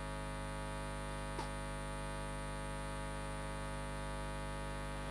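Steady electrical mains hum with many even overtones on the sound feed, with one faint click about a second and a half in.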